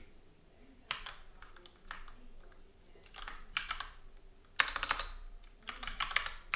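Typing on a computer keyboard in short bursts of keystrokes with pauses between them. The loudest flurry comes about four and a half seconds in.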